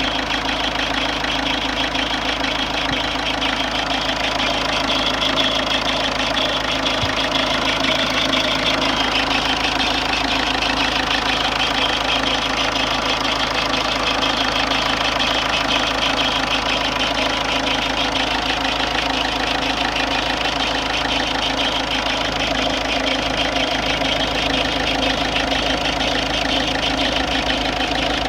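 Ford Fiesta 1.4 TDCi four-cylinder diesel engine idling steadily with a fast, even clatter running through it. This is the unexplained strange engine noise, whose cause is not known.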